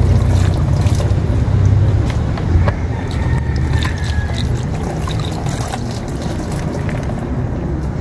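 Water pouring from a plastic gallon jug over a freshly cleaned fish held in the hand, trickling and splashing as the fish is rinsed, with small clicks and a steady low rumble underneath.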